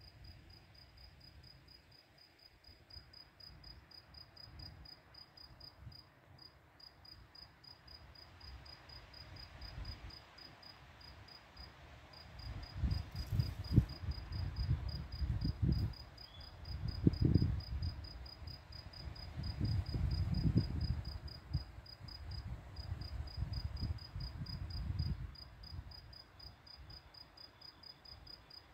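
Crickets chirping in a fast, even, high-pitched pulse. From about twelve seconds in until near the end, loud low rumbling comes in several swells.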